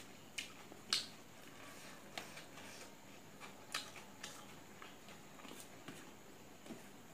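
Eating by hand from a stainless steel plate: a few scattered sharp clicks and smacks, the loudest about a second in.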